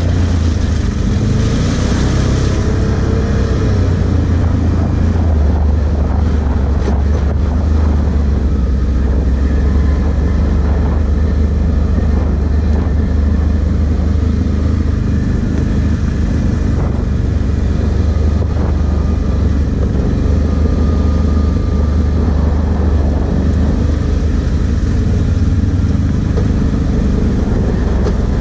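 Can-Am Outlander 1000 ATV's V-twin engine running steadily as it rides along a dirt trail, heard from on board.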